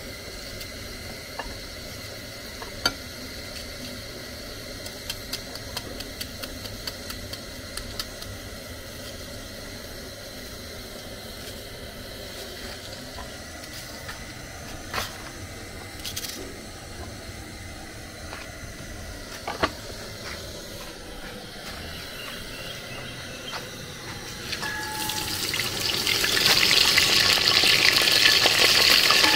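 Knife slicing red onions, with scattered sharp clicks of the blade. About 25 seconds in, a loud, steady sizzling hiss rises: ingredients frying in hot palm oil in an aluminium pot.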